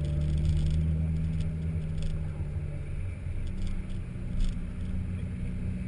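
BMW E92 M3's 4.0-litre V8 with its axle-back mufflers removed, heard from inside the cabin, running steadily at low revs as the car rolls slowly. The engine note changes about three seconds in.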